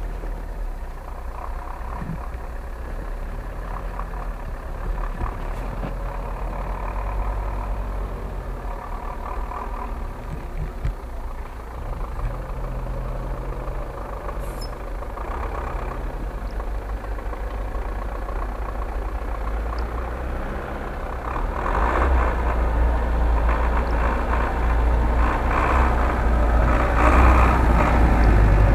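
GAZ-66 off-road truck's engine running as the truck drives toward the listener along a snowy track, growing louder in the last third as it comes close.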